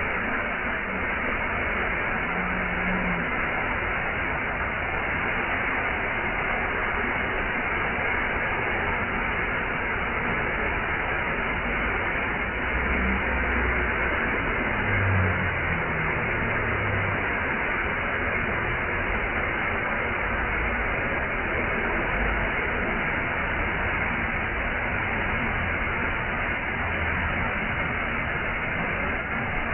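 Waterfall: a steady, unbroken rush of falling water, with a few faint low bumps now and then.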